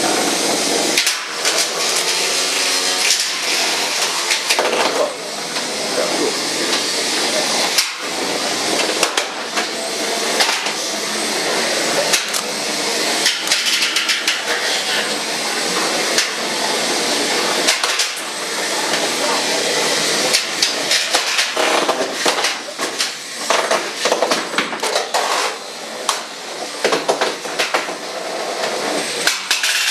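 Antweight combat robots fighting: small electric motors whirring while the robots repeatedly bang and clatter into each other and against the arena's clear plastic walls, with many sharp impacts.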